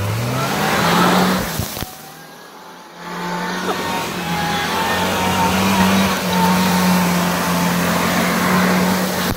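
Supercharged lifted Toyota Tacoma pickup's engine revving hard as its tires spin in mud. It eases off for about a second, two seconds in, then holds high revs again, with the tires churning, until it cuts off near the end.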